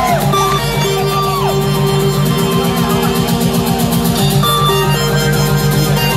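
Live industrial music played loud over a concert PA: a fast, even pulsing beat under several steady held tones.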